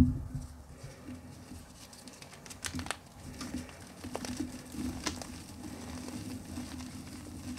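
Hands crushing reformed gym chalk in a plastic tub: soft crumbling and crunching with a few sharper cracks as pieces break. There is a dull thud right at the start.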